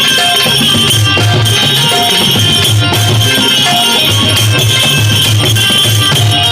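Indian folk instrumental music led by a benjo (bulbul tarang, a keyed banjo-zither), over a steady, quick low drum beat and jingling percussion.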